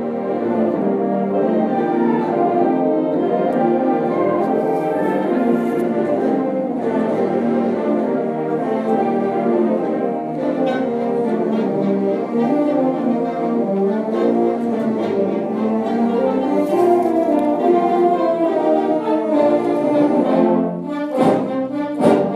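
Orchestral background music with brass, likely French horns, playing sustained chords.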